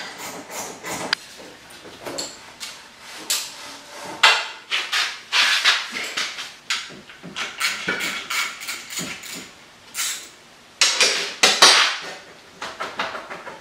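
Metal hand tools and engine parts clinking and knocking in irregular taps and clanks, in clusters: the supercharger bracket and its parts being worked loose by hand.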